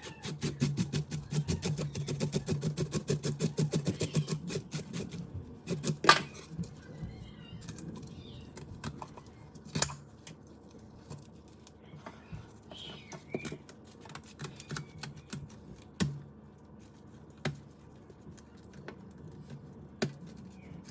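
Fast, even clicking strokes, several a second, for the first four or five seconds, then scattered clicks and a few sharp knocks, the loudest about six seconds in.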